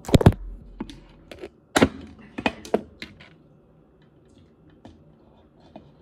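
Sharp plastic clicks and knocks from the three-way lid of a double-walled tumbler being worked open: a loud cluster at the start, several more over the next three seconds, then only faint ticks.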